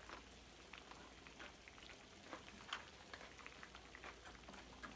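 Near silence: kitchen room tone with a low hum and faint, scattered small ticks.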